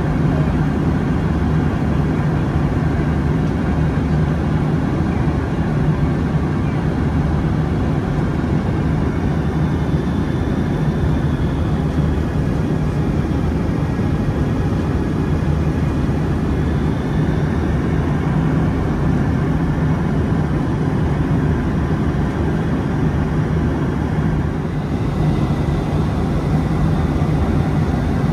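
Steady cabin noise inside a Boeing 757-200 airliner, a low, even rumble of engines and rushing air heard from a window seat.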